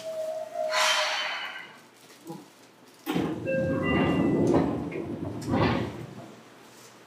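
Sounds aboard a Seibu 2000 series commuter train: a steady tone that cuts off about a second in, overlapped by a short burst of air hiss. After a quieter gap comes about three seconds of louder rumbling noise with a few brief tones.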